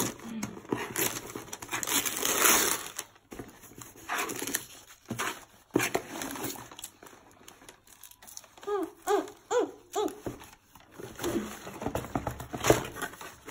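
Gift wrapping paper being torn and crinkled off a cardboard shoebox, loudest in the first few seconds, then quieter rustling and handling of the box, with another loud rustle near the end.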